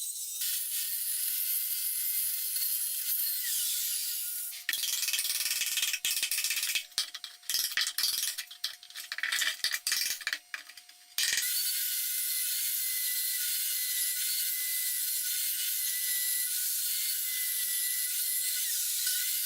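Workshop tool noise: a steady high hiss, broken in the middle for about six seconds by rapid, irregular clicking and clatter.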